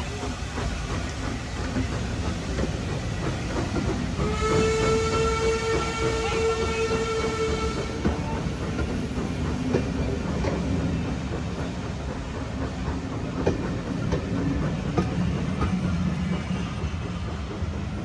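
Coaches of a steam-hauled passenger train rolling past on the rails, a steady rumble with occasional sharp wheel clicks. About four seconds in, the steam locomotive's whistle sounds for about four seconds on one steady pitch, then fades.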